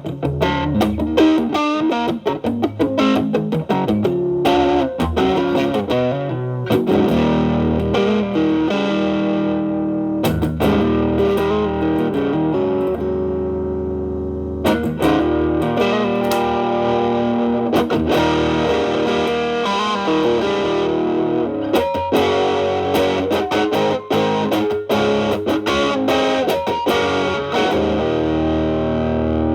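Improvised electric guitar playing from a Telecaster through an MXR Distortion+ stacked with a Boss SD-1 into a Marshall Valvestate amp's clean channel, the drive cleaned up to a lighter, less saturated sound. Single-note lines and chords, with one chord left to ring and fade about halfway through before the playing starts again.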